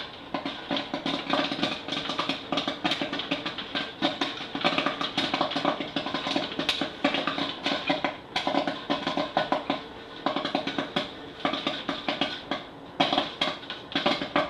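Nostalgia Electrics kettle popcorn machine running: a steady motor hum under dense, irregular clicking and crackling of kernels rattling in the heated kettle.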